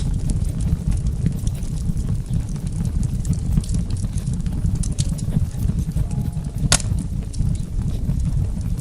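Wood fire burning in a fireplace, with a steady low rumble and scattered small crackles, and one sharp pop about two-thirds of the way through.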